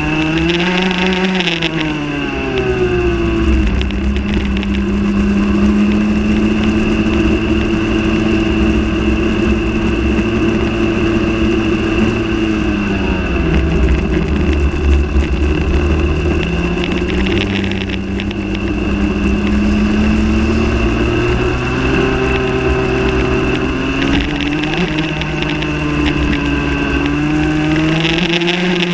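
Rotax Max 125cc two-stroke kart engine at racing speed, revs climbing on each straight and dropping as it brakes for the corners, several times over. A steady high whine runs through it.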